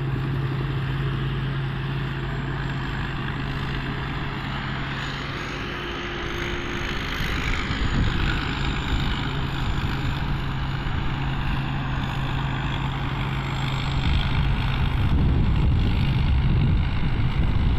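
Rice combine harvester running steadily as it harvests, a constant engine drone with machinery noise over it; it grows louder over the last few seconds.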